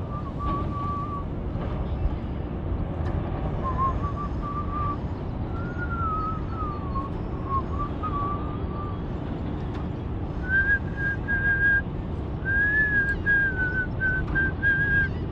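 A man whistling a tune: one wavering pitch in short phrases that move up about two-thirds of the way through. A steady low rumble runs underneath.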